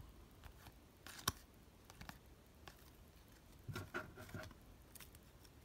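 Trading cards being handled and set down on a table: faint slides and light clicks of card stock, with one sharp tap about a second in and a short run of soft rustles near the four-second mark.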